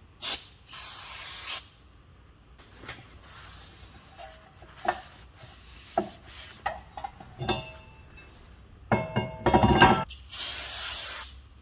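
Aerosol brake cleaner hissing in two sprays, one right at the start and one near the end, onto a new brake rotor. In between come light metal clicks and knocks, and about nine seconds in a loud ringing clank of metal parts being handled.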